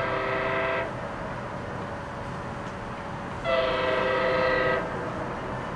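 Approaching MARC commuter train's locomotive horn sounding a chord of several notes: a short blast, then a longer blast about three seconds later, over a steady background hiss.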